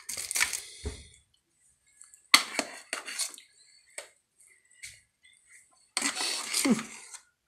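Kitchen utensil working cream onto a cake: a few short scrapes and knocks against a bowl or plate with pauses between, the sharpest a knock a little over two seconds in and a longer scrape about six seconds in.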